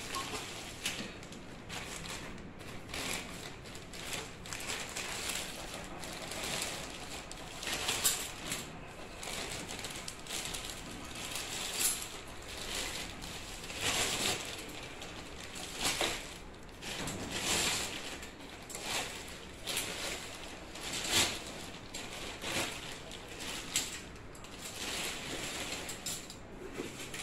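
Plastic packaging film crinkling and rustling in irregular bursts as it is pulled and torn off a folded stainless steel wire rack, with a few sharper knocks and clinks of the metal frame being handled.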